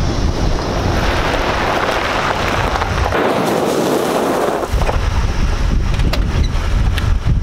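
Wind buffeting the microphone outdoors: a steady, loud rumbling hiss, with a few sharp clicks in the second half.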